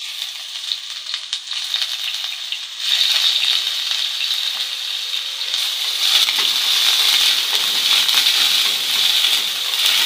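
Chicken gizzards and liver frying in hot oil with ginger in a nonstick pan, sizzling hard as they are stirred. The sizzle starts suddenly as the meat goes in and gets louder about three seconds in, and again around six seconds.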